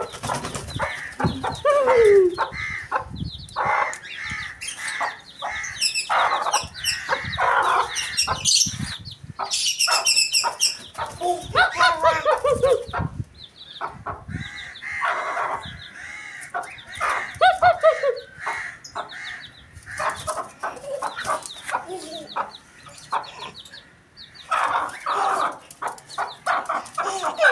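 Hen squawking and clucking repeatedly with falling cries as a toddler grabs at it, while chicks peep in quick high chirps.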